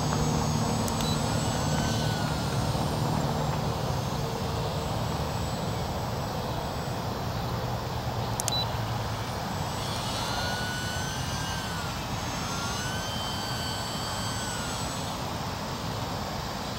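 The electric motor and propeller of an E-flite UMX Yak 54 micro RC aerobatic plane whine in flight overhead, the pitch rising and falling several times with the throttle, most plainly in the second half. Under it runs a steady hiss.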